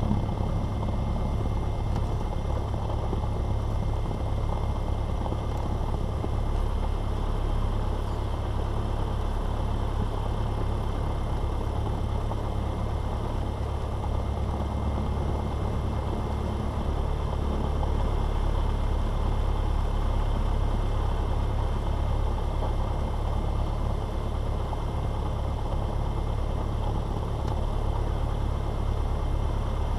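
Cessna 172's piston engine running steadily at idle, propeller turning, as the plane taxis.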